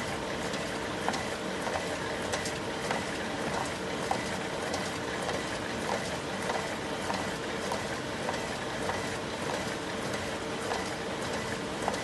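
Xerox Versant 2100 production printer running at full speed: a steady whir with a faint hum, and a soft tick about every 0.6 s as each printed sheet drops into the output tray.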